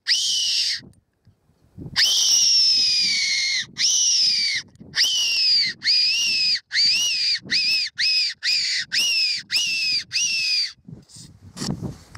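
Best Fox Whistle SS Tenterfield fox whistle blown by mouth, imitating a rabbit's distress squeal. A short note at the start and two long, slightly falling wails are followed by a quick run of about nine short squeals, each rising then falling, about two a second, which stops shortly before the end.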